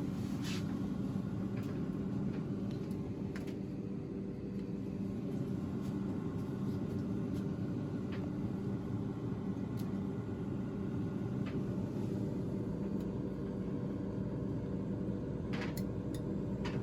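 Steady mechanical hum, like a household appliance running, with a few faint clicks.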